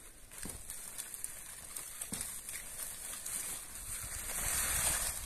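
Dry bean pods rustling and crackling as they are tipped out of a cloth apron into a sack, growing louder near the end.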